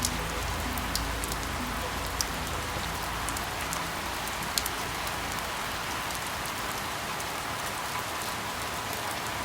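Steady rain falling, with scattered sharp drop ticks over the even patter. Soft held music notes fade out in the first couple of seconds.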